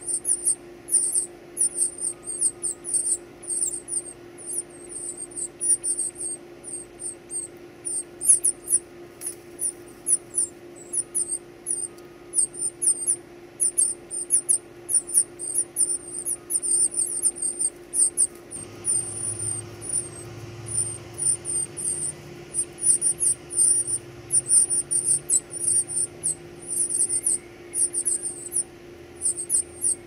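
Northern cardinal nestlings begging for food: a continuous stream of rapid, very high-pitched chirps, several a second.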